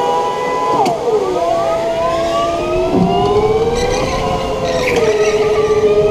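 Electric go-kart motors whining, with several tones from more than one kart. The main whine drops in pitch about a second in as the kart slows into a corner, then climbs again as it accelerates out.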